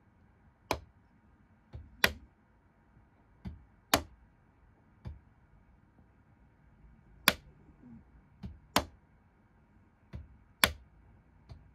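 Gaugemaster PM2 solenoid point motors, fired from a capacitor discharge unit, snapping the N gauge turnout blades back and forth: about a dozen sharp clicks at irregular intervals, several in close pairs, as the points are tested.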